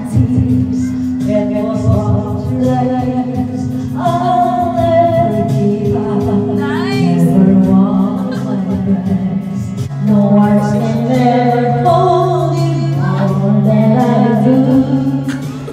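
A woman singing a slow song into a karaoke microphone over the karaoke backing track, holding long notes over steady low accompaniment.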